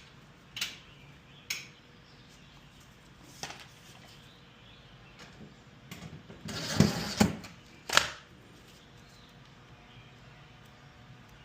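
Scattered clicks and knocks from washer parts and tools being handled during reassembly. Near the end there is a short rattling scrape, followed by a sharp knock.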